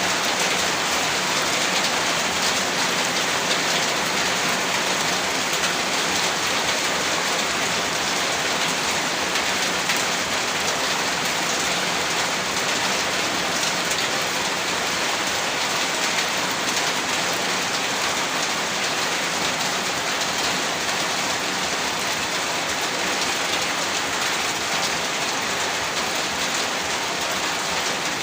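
Steady heavy rain: an even, dense hiss with a fine patter of drops that does not let up.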